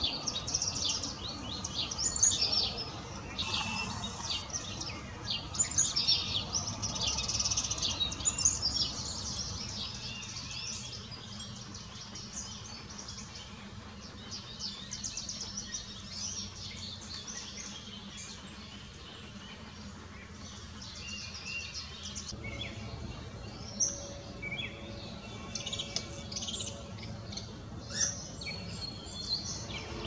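Backyard songbirds chirping and singing, several at once: busy for the first several seconds, thinning out in the middle, with scattered calls again near the end.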